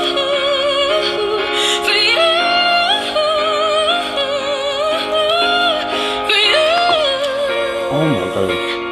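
A female singer performing a soul ballad, holding long notes with a wide vibrato over steady sustained accompanying chords.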